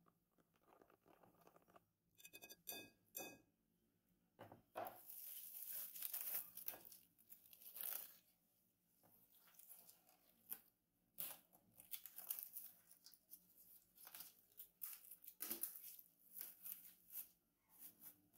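A few light clinks of a plastic whisk against a glass bowl, with a short ring, then plastic cling film crinkling and tearing in irregular bursts as it is pulled off and stretched over the bowl.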